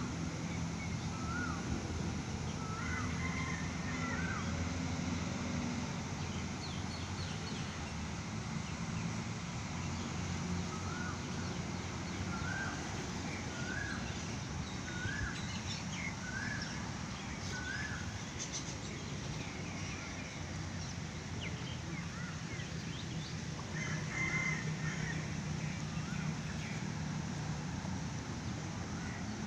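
A bird repeating a short rising call about once a second, in two runs of several calls, over a steady low hum.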